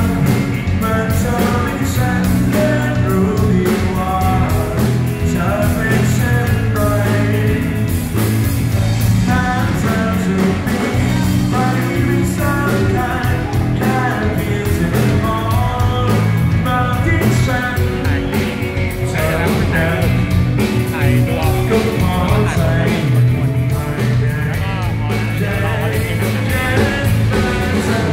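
Live rock band playing a song: a man singing into a microphone over electric guitars, bass guitar and a drum kit, steady and loud throughout.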